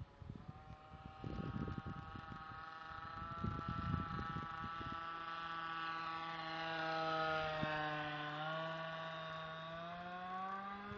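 Radio-controlled model airplane engine running steadily in flight, a buzzing note whose pitch dips about eight seconds in and then climbs near the end. Low rumbles on the microphone during the first few seconds.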